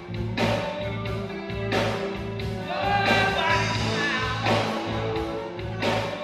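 Reggae band music with a repeating bass line and regular drum hits about every one and a half seconds.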